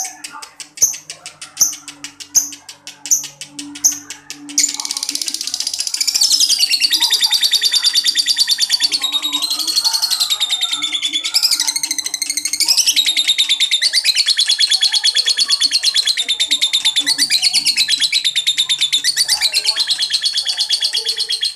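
Lovebird chattering: sharp high chirps repeated for the first few seconds, then from about four seconds in a fast, continuous high twittering trill that wavers up and down in pitch.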